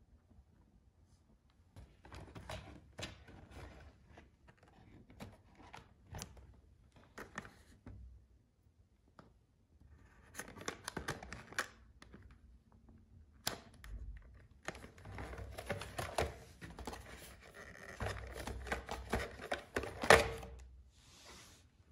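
Body clips being pulled off an RC car's body posts and the hard plastic body shell being handled: scattered clicks, taps and rustling, busier in the second half, with one sharp click near the end.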